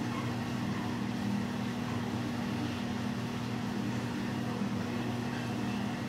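Steady mechanical hum of building equipment: a constant low drone that does not change.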